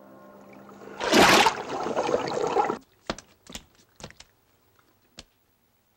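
Ambient music fades out, then about a second in a sudden loud gush of water lasts under two seconds and cuts off. It is followed by a few scattered sharp clicks and drips.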